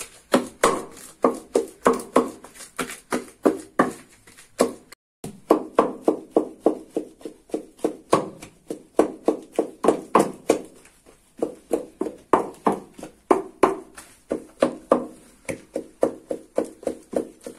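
Wooden pestle pounding in a mortar, a steady run of knocks about three a second, with a short break about five seconds in: boiled taro being pounded and mixed into fufu.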